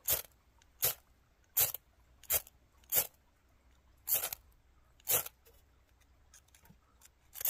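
Seven sharp scrapes of a metal striker down a fire-starting rod, about one every three-quarters of a second, with a pause of about two seconds near the end: striking sparks into magnesium shavings and tinder to light a fire.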